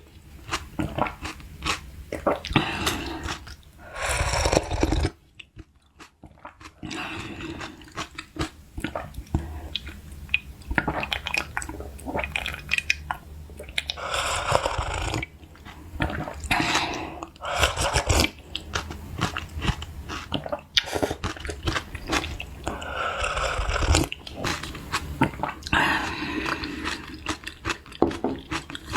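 Close-miked eating sounds: chewing and crunching of food, with many short wet clicks and smacks, pausing briefly about five seconds in.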